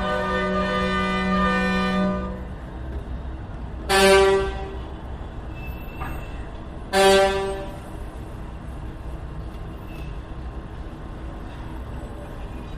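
Street traffic heard through closed balcony doors: one long vehicle horn blast, then two short, louder honks a few seconds apart, over a steady low traffic rumble.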